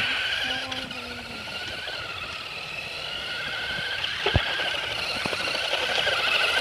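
Remote control truck's electric motor whining at speed, a high wavering whine that fades about a second in and grows louder again toward the end as the truck moves away and comes back. A single sharp knock a little over four seconds in.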